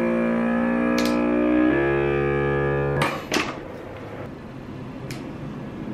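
AKZIM vacuum sealer's pump running with a steady hum that drops in pitch partway through the cycle, then cuts off suddenly about three seconds in. A few sharp clicks and plastic bag rustling follow as the sealed bag is lifted out.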